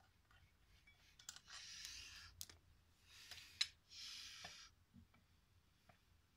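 Faint sounds of hands and tools working on an old cast pump: a few sharp clicks, the loudest about three and a half seconds in, among soft hissing bursts every second or two.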